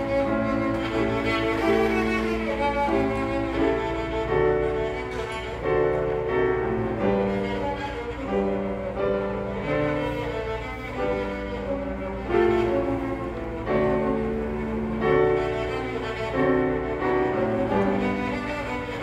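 A child plays a melody of sustained bowed notes on a cello, accompanied by a grand piano.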